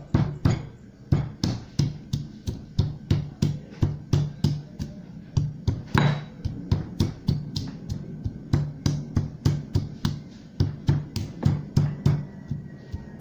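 Garlic cloves being cracked with a stone pestle in a stone mortar: a steady run of dull stone-on-stone knocks, about three a second.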